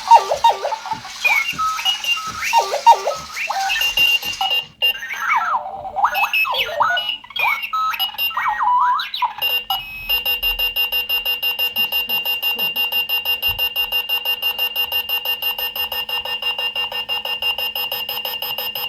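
Clocky alarm clock sounding its electronic alarm: warbling chirps that slide up and down in pitch. About ten seconds in these change to a steady, fast beeping at one pitch, about four beeps a second.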